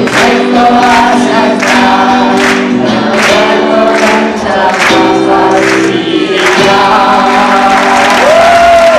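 An audience singing a melody together as a group, their pitches moving in steps, with a final note sliding up and held near the end.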